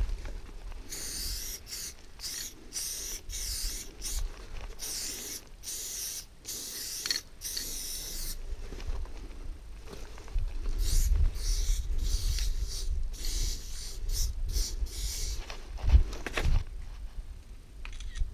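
Aerosol spray paint can hissing in a rapid series of short bursts as lettering is sprayed on, with a low rumble joining about halfway through.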